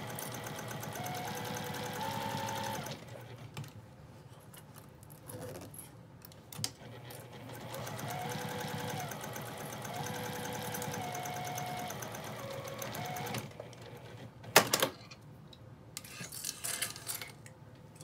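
Juki sewing machine stitching a seam in two runs with a pause between, its motor whine rising and falling in pitch as the speed changes. A sharp click comes after the second run, then a few small clicks.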